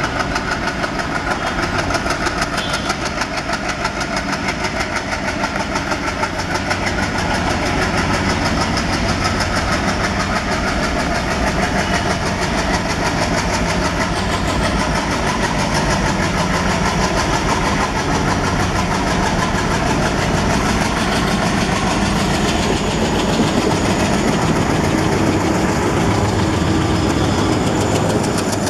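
ALCO WDG 3A diesel locomotive's engine working steadily under load with a rapid, even exhaust beat as it hauls a passenger train past.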